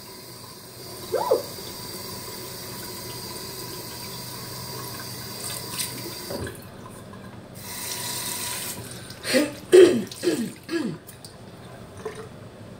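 Tap water running into a sink, shut off about halfway through. Near the end come a few short, loud sounds falling in pitch.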